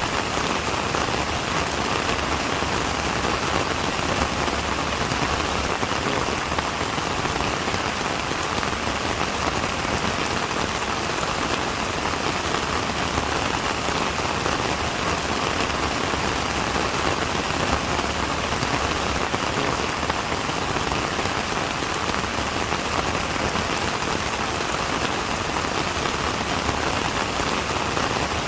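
Steady rain falling on a surface, a constant even patter of raindrops.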